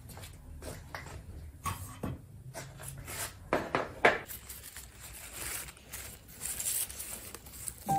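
Flip-flop footsteps slapping and scuffing on a concrete path, a string of irregular short strokes with the loudest about four seconds in. After that comes a lighter rustling of leaves and a plastic glove as garden vegetables are handled.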